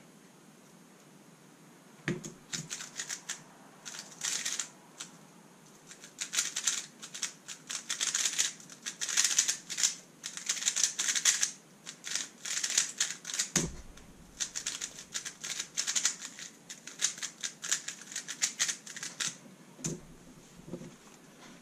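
Thunderclap v3 M speedcube, a magnetic 3x3 Rubik's cube, being turned fast: dense flurries of plastic clicks and clacks for about seventeen seconds. Dull thumps come at the start of the turning, about two-thirds of the way through, and again near the end.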